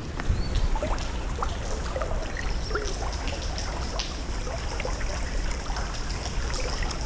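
River current rippling and trickling over riffles close by, with a steady low rumble.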